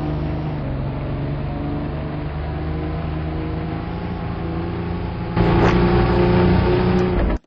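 A steady droning hum with several held tones that shift in steps. It jumps louder about five and a half seconds in and is cut off abruptly at the end.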